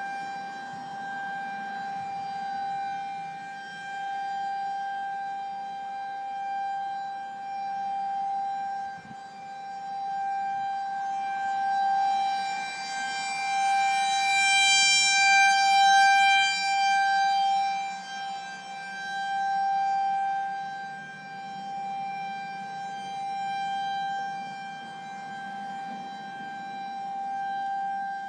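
Federal Signal outdoor warning siren holding a steady, high-pitched wail during a test. Its loudness swells and fades every few seconds and is loudest about halfway through.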